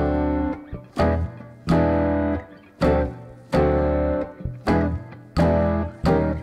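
Background music: plucked string chords over a bass line, struck about once a second and each ringing out before the next.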